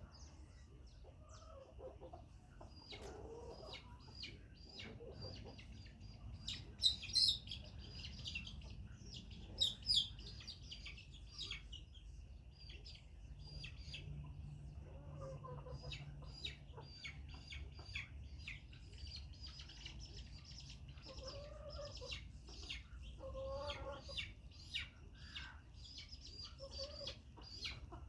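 Chickens clucking in short, repeated calls, with high, sharp chirps scattered through. The chirps are loudest about a third of the way in. A steady high-pitched tone runs underneath.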